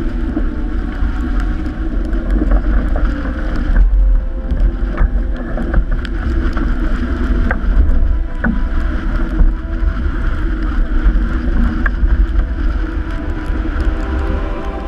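Strong wind buffeting the microphone aboard a sailing yacht heeled over in rough water, with the rush of waves and spray along the hull and scattered sharp ticks and knocks.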